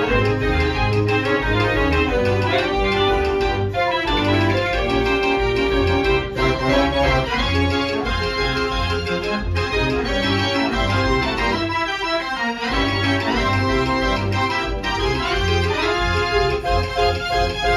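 Mortier dance organ playing a samba-rumba tune on its pipes, with a steady pulsing bass and accompaniment under the melody. About twelve seconds in the bass drops out for a moment before the beat resumes.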